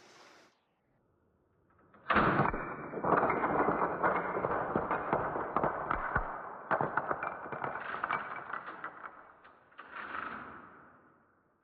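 Nerf blaster firing repeatedly at a stack of wooden Jenga blocks: a sudden start about two seconds in, then a dense run of rapid clicks and clattering knocks for about eight seconds, with a last burst just before it fades out.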